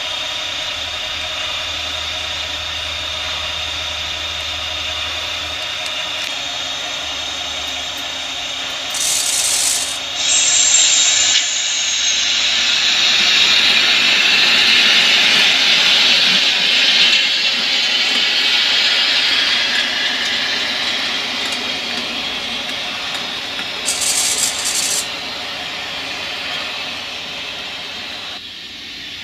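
Märklin E 69 'Pauline' model electric locomotive and its coaches running on the layout track: a steady rolling hum with a high whine. It grows louder in the middle stretch as the train comes nearer and then fades, with two brief bursts of hiss, about ten seconds in and again near the end.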